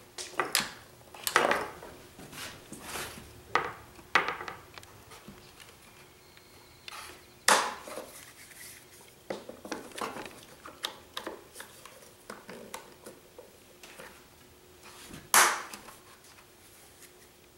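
Quick-Grip one-handed bar clamps being handled and tightened on a small wooden canoe on a workbench: scattered clicks, knocks and rattles, with two sharper knocks about seven and fifteen seconds in.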